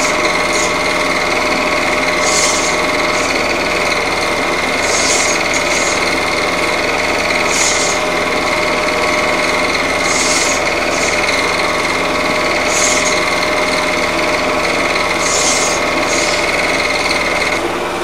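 Cine film projector running: a steady mechanical whirr with a constant high tone, and a short hiss that comes back about every two and a half seconds. Just before the end the high tone drops out.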